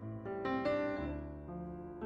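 Background piano music, single notes and chords struck one after another at a gentle pace.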